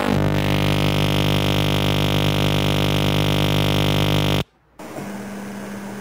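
Microwave-oven magnetron rig, driven by a microwave oven transformer with a capacitor bank wired in parallel to the magnetron, running with a loud, steady mains buzz; the parallel capacitors make it run in pulses rather than half cycles. About four and a half seconds in the buzz cuts out briefly and comes back quieter.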